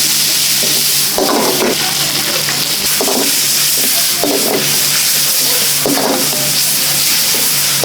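Food frying and sizzling in a pan on a restaurant stove: a steady loud hiss over a low hum, with short stirring strokes every second or two.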